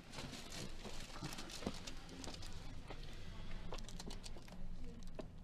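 A person turning over on a padded chiropractic treatment table: rustling with scattered light knocks and creaks, several a second.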